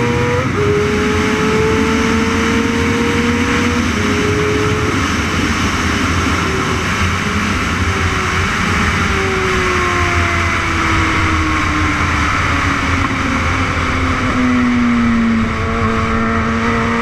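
Onboard sound of a 600cc superbike engine at high revs with wind rush: the engine note climbs and breaks twice in the first four seconds as the rider shifts up, falls steadily over several seconds as the bike slows for a corner, then starts climbing again near the end as it accelerates out.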